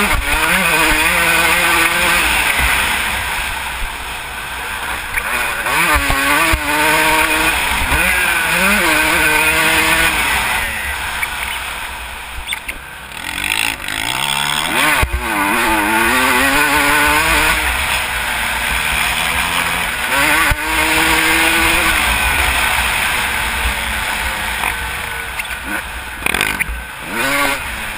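Motocross bike engine revving hard on the track, the pitch climbing and dropping again and again as the rider shifts, with brief easings of the throttle. A steady low wind rumble sits on the microphone.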